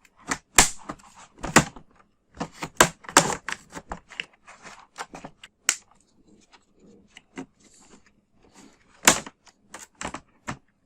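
Plastic retaining clips of an Acer Aspire 3 laptop's bottom cover snapping loose as a plastic card is run along the seam: a series of sharp, irregular clicks, thickest in the first four seconds, then sparser, with another loud snap about nine seconds in.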